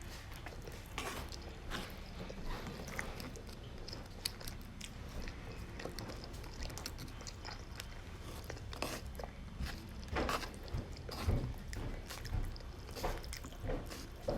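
A person chewing and biting food close to the microphone, with soft clicks and smacks at uneven intervals, more of them in the second half.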